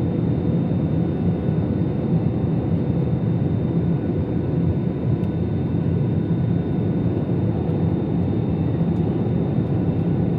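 Steady engine and airflow noise of an airliner, heard from inside the passenger cabin.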